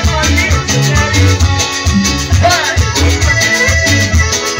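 A live dance band playing loud Latin dance music through loudspeakers: a steady bass beat with a melody over it.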